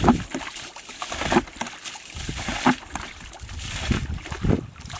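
Muddy water sloshing and splashing as a plastic basin scoops it up and flings it out of a shallow pool, one splash every second or so: the pool is being bailed out by hand.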